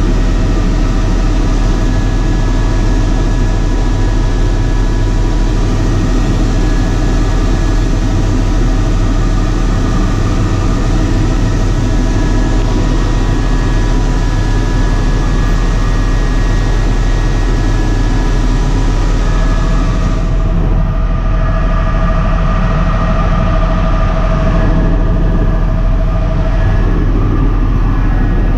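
Helicopter cabin noise in steady flight: the rotor and engine make a loud, even drone with a deep low hum and several steady tones above it. About two-thirds of the way in, the high hiss drops away and a new steady mid-pitched tone comes in.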